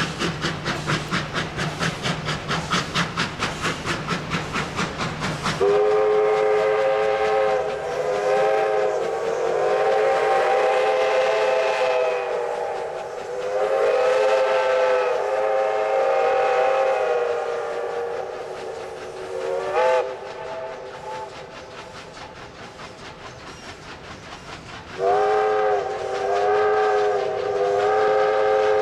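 Victorian Railways R class Hudson steam locomotives working out of a station. Quick, even exhaust beats come first, then long chords of steam whistles in several blasts with short breaks. A quieter spell with faint beats follows, and the whistles sound again near the end.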